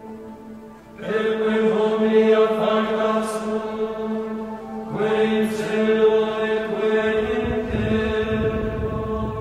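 Chant sung over a steady held drone note, with new sung phrases swelling in about a second in and again about five seconds in.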